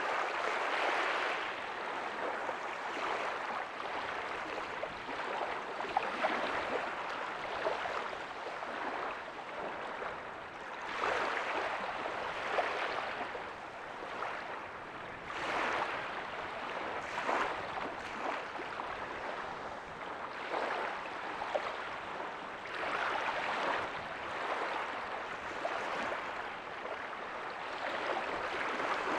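Ocean waves breaking softly on a beach: a continuous wash of surf that swells and ebbs as each wave comes in.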